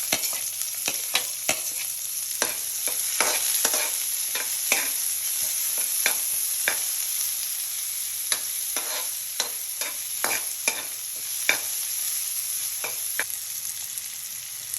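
Onion sizzling and frying in hot oil in a pan, a steady hiss, with frequent irregular clicks and scrapes of a utensil stirring it around the pan.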